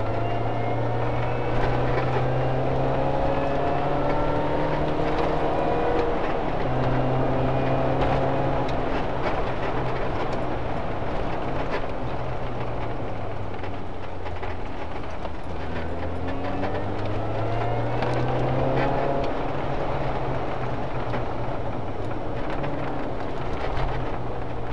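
Mini Cooper S engine pulling under load, its revs climbing and dropping back several times with gear changes, over steady road and tyre noise.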